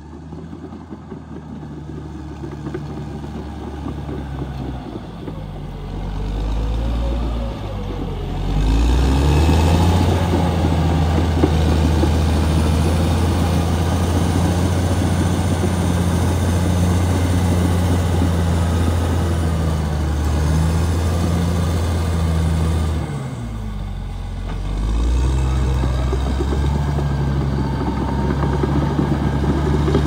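Caterpillar D6R XL bulldozer's diesel engine working under load as the dozer pushes earth with its blade. The sound swells in over the first several seconds and then holds loud and steady. About three-quarters of the way through, the revs dip briefly and pick back up.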